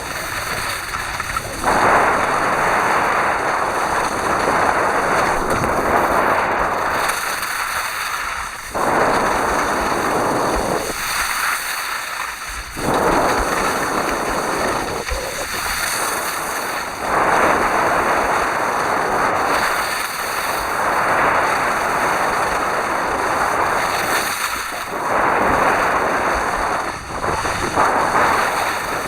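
Wind buffeting the microphone while skiing downhill: a loud rushing noise that surges and eases every few seconds, dropping back briefly twice about a third of the way in.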